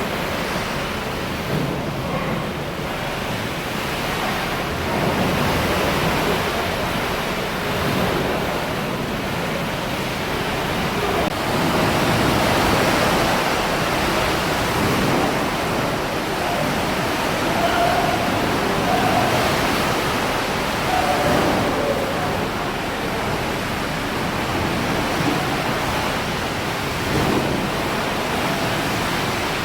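Water in a cruise ship's swimming pool sloshing and crashing about as the ship rolls in a storm, swelling and easing in uneven surges. Pool water this wild is the sign of very big, strong waves outside.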